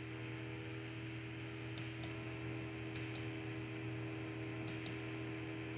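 Computer mouse clicks: three pairs of quick, sharp clicks about a second apart, over a steady low hum.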